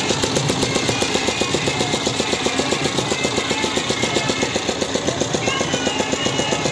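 Stationary single-cylinder diesel engine running with a fast, even thudding beat, driving a fairground swing ride through a belt and tyre friction wheel.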